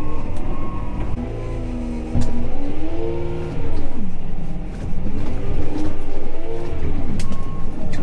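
Manitou telehandler's diesel engine heard from inside the cab, revving up and falling back again and again as it works. A reversing beeper sounds in the first second and again near the end.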